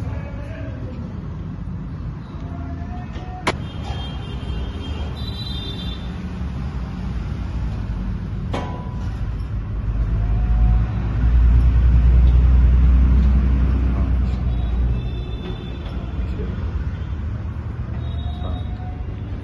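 Road traffic noise: a steady low rumble that swells loudest around the middle, as a heavy vehicle passes, with two sharp clicks and a few faint, short high tones.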